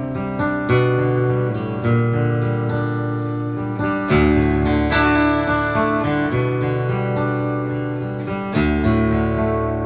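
Background music: acoustic guitar strumming chords, with deeper low notes coming in about four seconds in.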